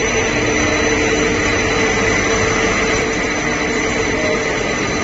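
LinePlas TPE/CPE/TPU/EVA film production machine running: a steady machine noise with several high, steady whining tones over it.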